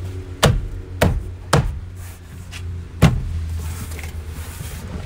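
Hands slapping a BMW X5's plastic interior door trim panel to knock it onto its retaining clips: three sharp thumps in quick succession, then a fourth about a second and a half later.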